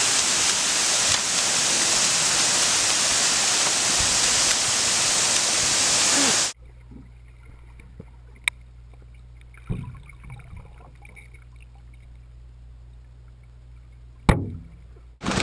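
Rushing creek water pouring over a low concrete ledge, a loud even hiss that cuts off abruptly about six and a half seconds in. After it comes a quiet low hum with a thump and two sharp clicks.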